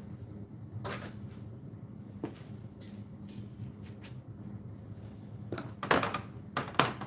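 Wire rack being set down and shifted on a plastic tray: several separate knocks and rattles, the loudest two near the end, under a second apart.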